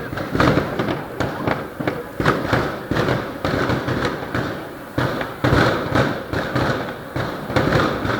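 A fireworks display going off in quick succession: many overlapping bangs and crackles with no break, the louder bangs coming every second or so.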